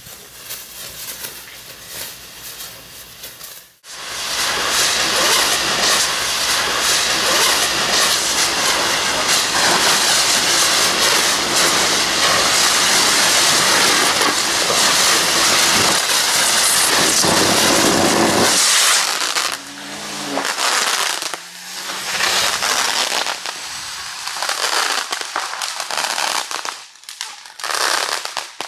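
Firework rockets, Roman candles and gunpowder burning. A crackling hiss cuts out about four seconds in and comes back as a loud, steady fizzing rush for about fourteen seconds, then breaks up into scattered crackles and pops.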